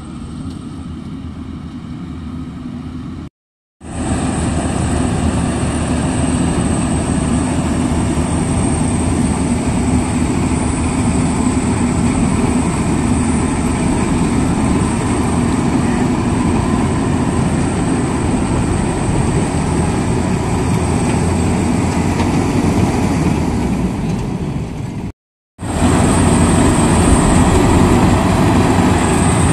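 Maxxi Bimo Evo Xtreme rice combine harvester running steadily under load as it cuts and threshes standing rice, a dense engine and machinery din with a thin high whine over it. It is quieter for the first few seconds, then loud, and stops dead for a moment twice.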